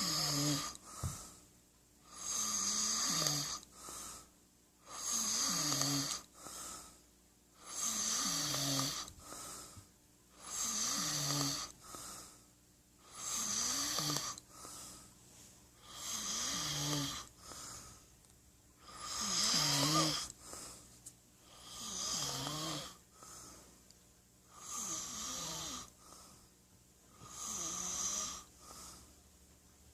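A sleeping man snoring steadily: a snore about every two and a half to three seconds, each followed by a shorter, softer breath.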